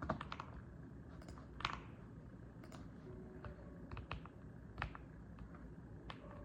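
Mechanical keyboard being typed on slowly: scattered, irregular keystroke clicks, roughly one or two a second, with short pauses between them.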